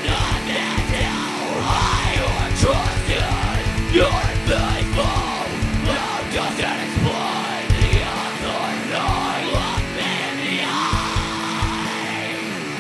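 Heavy rock band recording with distorted guitars, drums and yelled vocals, with a rapid double-kick drum run in the first few seconds and scattered kick hits after it.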